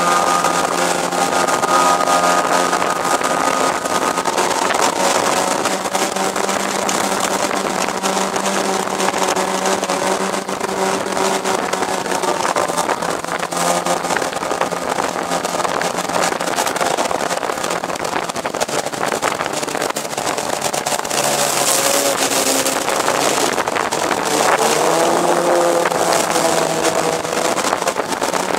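Outboard motor running at speed, pushing an aluminum jon boat through the water. Its engine note stays steady, shifting in pitch a few times and rising about 25 seconds in.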